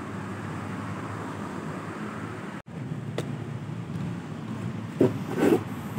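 Steady low background rumble of ambient noise, broken by an instant's dropout about two and a half seconds in, with two short knocks near the end.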